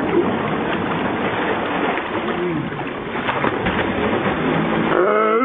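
Swimming-pool water splashing as people topple into it from a shoulder stunt, over a steady rushing hiss.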